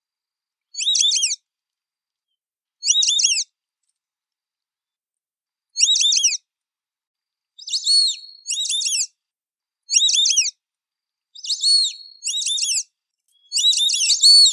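White-faced whistling ducks (irerê) giving their high whistled calls: about nine short calls, each a few quick falling whistle notes, spaced a second or two apart, coming in close pairs toward the end.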